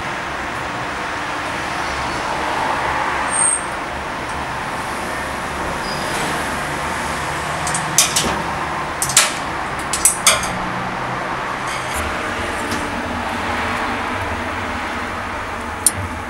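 Sharp metal clinks and knocks of a long iron meat rod against the steel ledge and hooks of a brick pit oven, a cluster of them about halfway through and one more near the end, over a steady background rumble.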